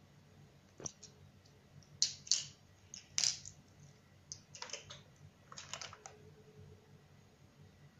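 Hard plastic clicks and clatters as a battery-powered toy helicopter and its AA batteries are handled and the toy is turned over, a scattered run of sharp knocks, loudest around two to three seconds in.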